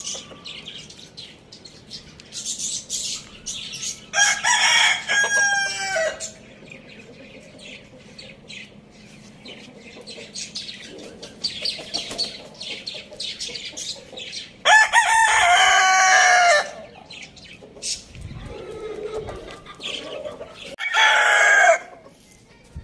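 Three rooster crows, the first two about two seconds long and the last shorter, with softer clucking and chirping calls between them.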